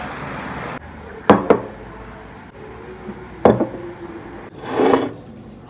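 A few sharp knocks on a hard surface: two close together about a second in and another about three and a half seconds in, then a short rustling swell near the end.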